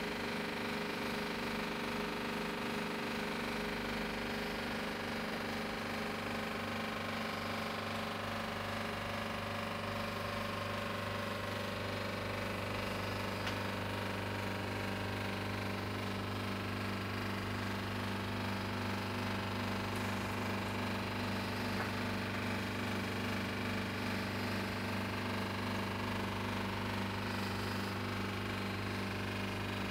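Liebherr refrigerator's compressor running through its cooling cycle: a steady hum with a crackling rattle.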